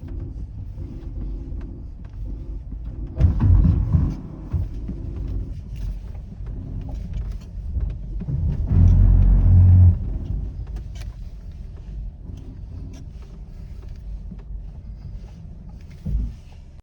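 Dacia Duster's 1.3 TCe turbocharged four-cylinder petrol engine running as the car drives slowly, with two louder surges of engine noise, about three seconds in and again around nine seconds in. Scattered short knocks come through the running engine.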